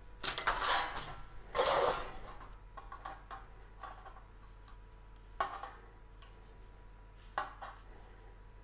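Brief scraping and handling noise on a sheet-metal blank, then a couple of sharp light metallic clicks a few seconds apart as the point of a pair of dividers is set down on the sheet.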